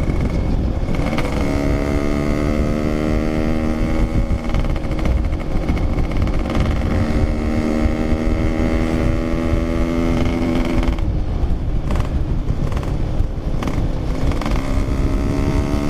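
Yamaha RX-King's 135cc two-stroke single-cylinder engine running under way, with wind on the microphone. Its pitch dips briefly near the start, climbs slowly for about ten seconds, drops about eleven seconds in as the revs fall, and rises again near the end.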